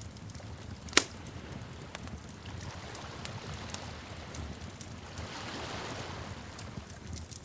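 Wood fire crackling with scattered small snaps over a low steady rumble, one sharp loud pop about a second in, and a soft hissing swell a little past the middle.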